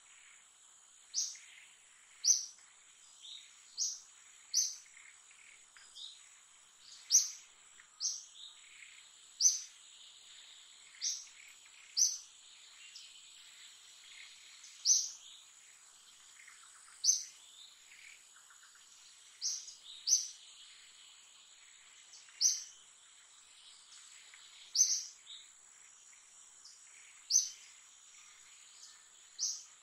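Short, sharp, high chirps from a bird, repeated irregularly every one to two seconds, over a steady high-pitched insect drone.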